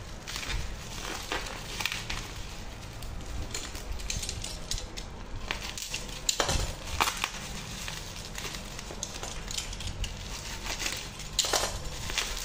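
Clear plastic bag and bubble wrap being handled and pulled open by hand: irregular crinkling and crackling, with a few sharper crackles about six to seven seconds in and again near the end.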